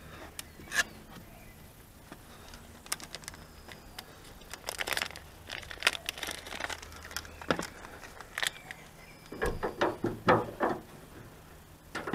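Scattered clicks, taps and rustles of gloved hands handling a car's plastic scuttle panel and washer hose under the bonnet, with a quick run of knocks about nine to ten seconds in.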